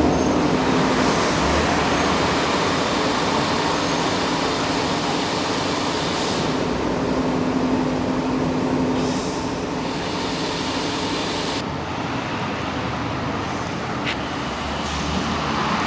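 Steady road traffic noise, with the hum of vehicle engines passing and swelling slightly at times.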